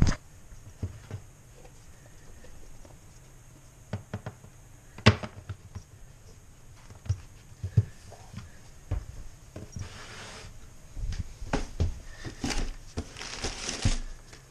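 Handling noises: scattered taps and knocks as a rubber bench mat is laid and smoothed on a counter, then rustling near the end as elbow guards are lifted out of a cardboard box.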